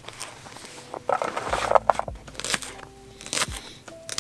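Kitchen knife chopping broccolini and then shallot against a plastic cutting board: sharp single cuts, with a quick run of cuts about a second in.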